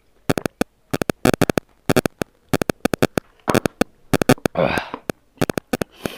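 Close-miked eating-by-hand sounds: irregular sharp, wet clicks and smacks from mouth and fingers working rice and pork. A short hissing rush comes about four and a half seconds in.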